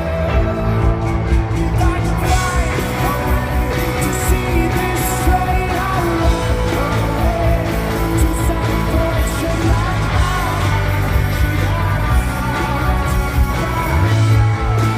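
Rock band playing live, with a lead singer's voice over the full band; the bass settles onto a steady held note near the end.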